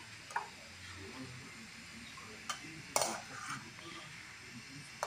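A metal serving spoon knocking and scraping against a cooking pot and serving dish as cooked vegetables are served out: a few separate sharp clinks, the loudest about three seconds in.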